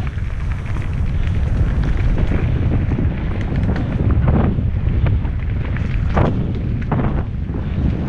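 Mountain bike descending a dirt trail: wind buffeting the action camera's microphone over the rumble of the tyres on the ground, with several sharp knocks and rattles as the bike hits bumps.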